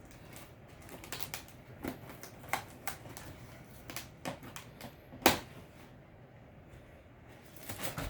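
Hands unpacking a box: scattered clicks and crinkles of cardboard and packaging being handled, with one louder knock about five seconds in.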